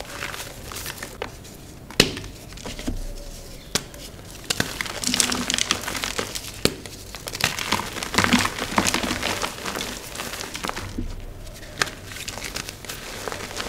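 Dyed, reformed gym chalk crunching and crumbling as it is crushed, with irregular crackles, a few sharp snaps, and two denser stretches of crunching about five and eight seconds in.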